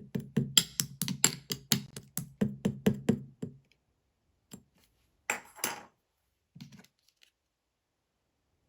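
Mint slime being pressed and kneaded, making sharp clicking pops in a quick even run of about five a second. The run stops about three and a half seconds in, followed by a few scattered clicks and crackles.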